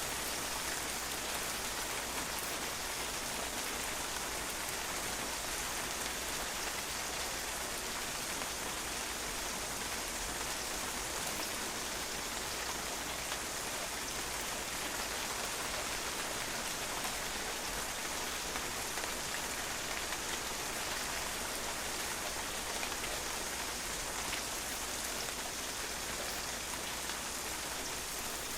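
Steady rain falling on a patio, a constant hiss of water with many small drops pattering and splashing on the hard surface.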